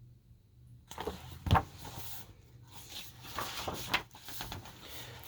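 Paper rustling with a few light knocks as a picture book's page is turned and the book handled, the loudest knock about a second and a half in.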